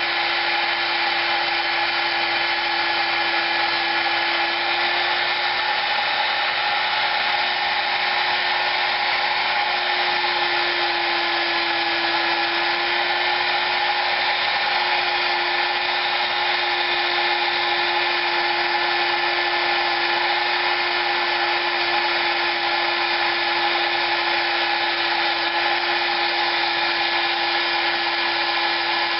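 High-speed rotary tool running steadily, grinding and polishing the aluminium cylinder head of a Predator 212 engine, with a steady high whine; its pitch dips slightly a little before halfway.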